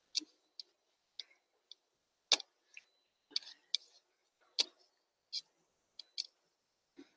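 Irregular clicks and taps from someone working a computer, about fifteen in all, with a louder tap a little over two seconds in and another about four and a half seconds in.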